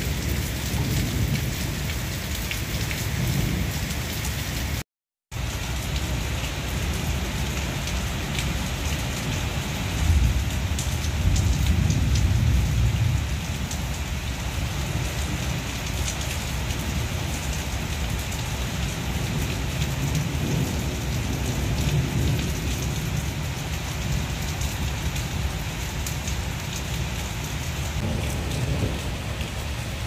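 Steady rain falling, a continuous hiss of drops, with a low rumble swelling about ten seconds in. The sound cuts out for a moment about five seconds in.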